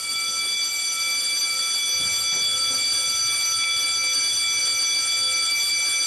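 School fire alarm sounding: a continuous, high-pitched electronic tone held steady and unbroken.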